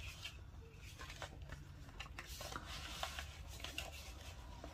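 Soft paper rustles and light taps of handmade journal pages and journaling cards being turned and handled, in short scattered strokes.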